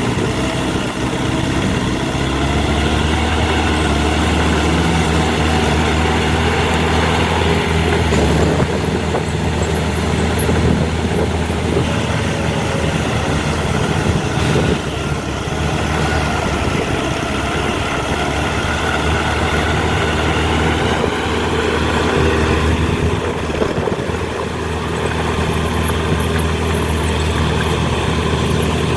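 Diesel engines of heavy earthmoving machinery, a dump truck and bulldozer, running steadily, with the pitch rising and falling slightly a few times as the load changes.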